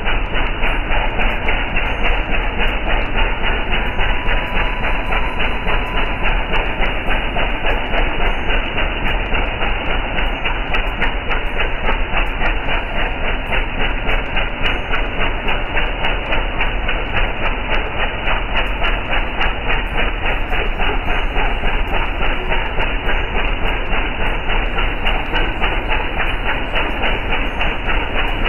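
Motorboat engine running steadily, a fast, even chugging.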